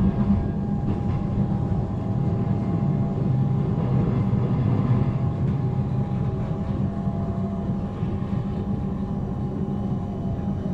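Suburban electric passenger train heard from inside the carriage: a steady low rumble with a constant hum, easing slightly near the end.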